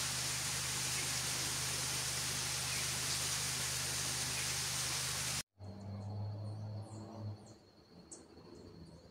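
A steady rushing noise for about five seconds, then an abrupt cut to quieter outdoor sound: birds chirping in short high calls over a steady insect buzz.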